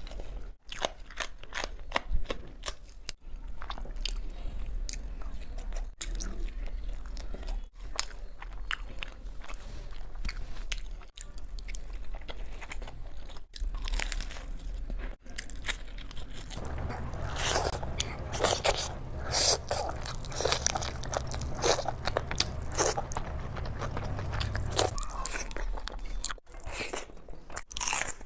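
Close-up crunching and chewing as crisp deep-fried Indian snacks such as kachori and samosa are bitten into and chewed, with many short crackly crunches. A low hum sits underneath for several seconds in the middle.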